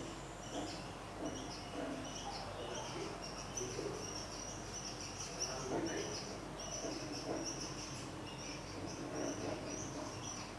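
Wild birds chirping, many short calls overlapping and repeating throughout.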